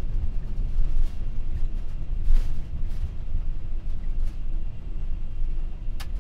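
McDonnell Douglas MD-11F on its landing rollout, heard in the cockpit: a loud, steady low rumble from the engines and the wheels on the runway as the freighter slows, with a few faint clicks and knocks.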